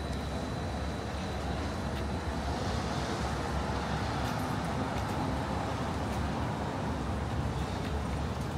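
City street traffic: a steady rumble of passing vehicles, with one vehicle going by that swells and fades in the middle.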